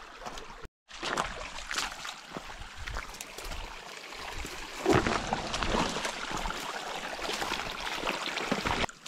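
Willow branches and leaves rustling and scraping against a hiker pushing through dense brush, mixed with footsteps, with the loudest scrape about halfway through. The sound cuts out for a moment just under a second in.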